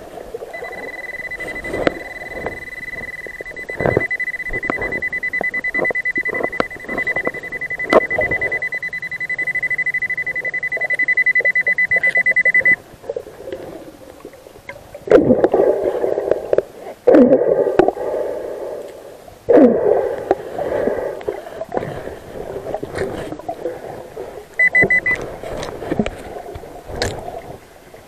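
An underwater metal detector sounds a steady high beep for about twelve seconds, then cuts off suddenly: its signal that metal lies in the sand below. After it come swishing, knocking water noises, with a short beep again near the end.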